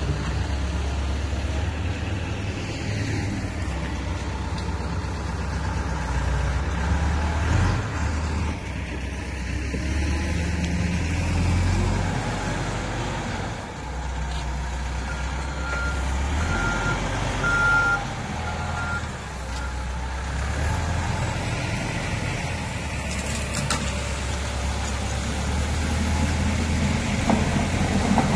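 Caterpillar 416F backhoe loader's diesel engine running steadily under load as it pushes a fallen tree. About halfway through its reversing alarm sounds four beeps, about a second apart.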